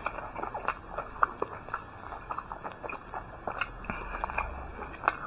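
A person chewing and biting food close to the microphone: irregular wet mouth clicks and crisp crunches.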